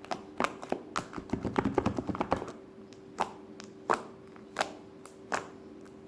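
Fluffy slime squished and pulled by hand, its trapped air popping: a quick run of sharp clicks and pops for about two seconds, then single pops roughly every 0.7 seconds.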